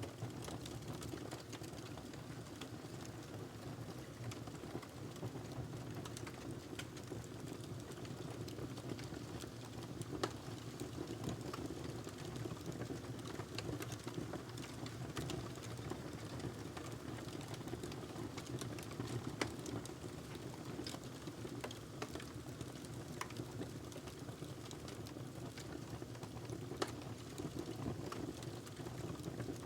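Wood fire crackling in a fireplace: a steady low rush of burning with irregular small crackles and a few louder sharp pops.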